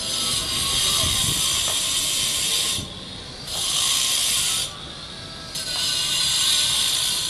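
Handheld electric angle grinder working on stone blocks: a loud, high, hissing grind in three bursts separated by two short pauses of about a second.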